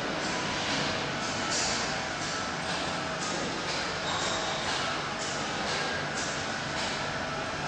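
Footsteps scuffing about twice a second over a steady hiss and hum.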